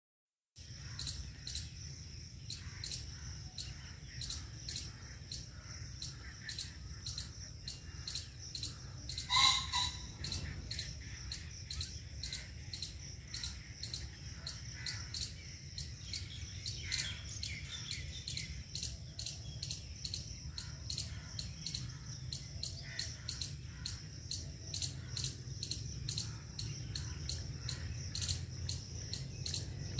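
Insect, cricket-like, chirping steadily in an even rhythm, about two to three high-pitched chirps a second, over a low steady rumble. One louder, briefer call stands out about nine and a half seconds in.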